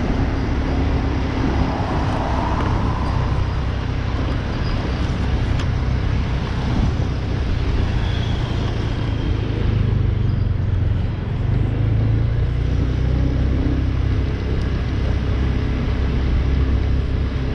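Motorcycle riding along a street, heard from on the bike: its engine runs steadily under a constant rush of wind and road noise.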